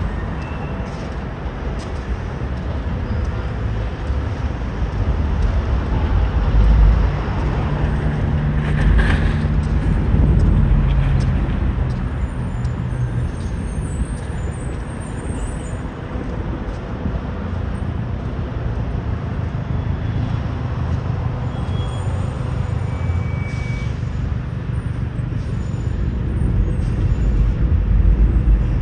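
Low, steady rumble of a heavy vehicle's engine, with a deeper engine tone swelling from about eight to twelve seconds in.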